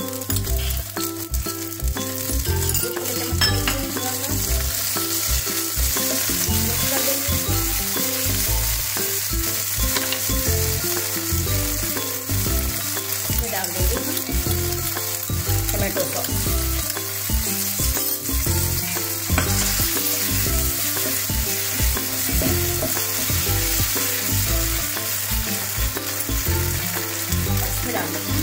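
Chopped onion, capsicum and green chillies sizzling and frying in hot oil in a non-stick pan as they are stirred, with soy sauce and sauces added to the pan.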